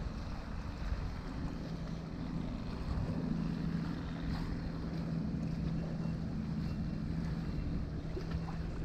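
Boat engine running steadily with a low, even hum, under wind buffeting the microphone and water around the hull.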